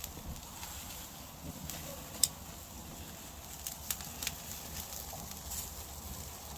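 Wood campfire crackling under grilling pork: a handful of sharp, scattered pops over a steady low rumble.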